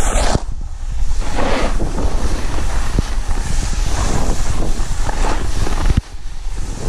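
Wind buffeting an action camera's microphone as a snowboarder rides down the slope, a heavy rumble with surges of hiss from the board sliding on the snow. The noise dips briefly about six seconds in.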